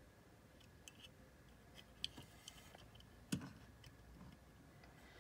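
Faint clicks and light taps of small die-cast metal toy F-14 jets being handled and picked up off a table, with one sharper click about three and a half seconds in; otherwise near silence.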